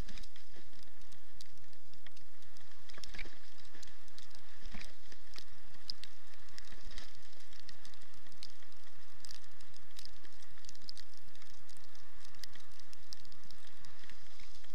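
Sled dog team running on a snow trail: a steady hiss with quick, irregular light ticks and patter, and a few louder knocks.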